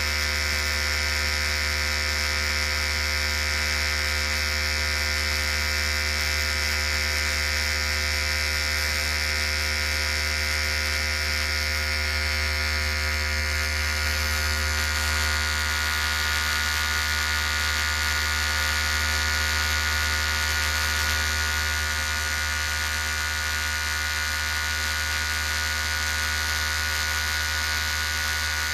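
Electric hair clippers running steadily, a constant unbroken buzz.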